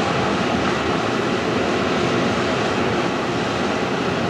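Hurricane-force wind blowing hard and steadily, a dense rushing noise with small rises and falls in strength.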